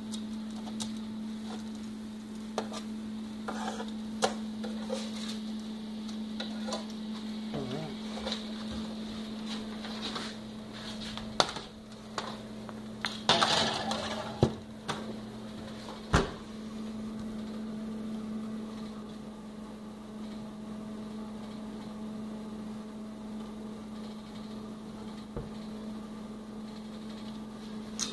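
Metal tongs clicking and scraping on a foil-lined baking sheet as chicken breasts are turned, then the baking sheet clattering on the oven rack as it slides in, and a sharp knock about 16 seconds in as the oven door shuts. A steady appliance hum runs underneath.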